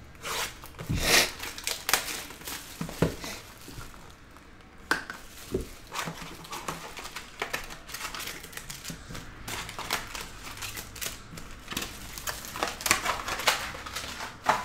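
A cardboard trading-card hobby box being torn open, then its foil card packs crinkling and rustling as they are pulled out and stacked, with irregular sharp crackles throughout.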